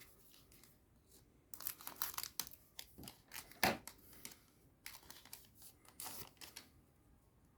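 Foil booster-pack wrapper being torn open and crinkled by hand, in several short papery rustles.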